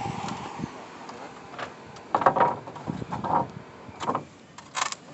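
Scattered knocks and clatters of hand work with wood and tools on a roof, several in a cluster a little over two seconds in. A spraying hiss fades out in the first second.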